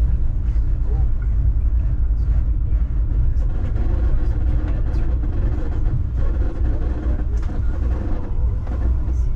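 Steady low rumble of a moving passenger train heard from inside the car, its wheels rolling on the rails, with a few faint clicks.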